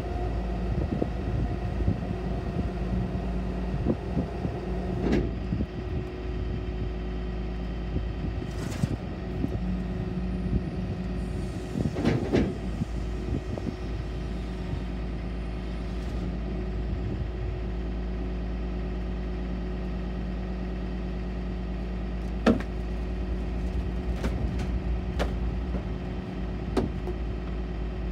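Refuse truck's diesel engine running steadily to power the hydraulics while the load is pushed out of the raised body, with scattered knocks and cracks from the junk shifting and breaking.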